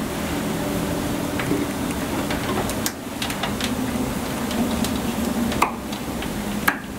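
Scattered light clicks and knocks of cable lugs and terminal hardware being handled while a bank of 6-volt batteries is wired in series, over a steady low hum.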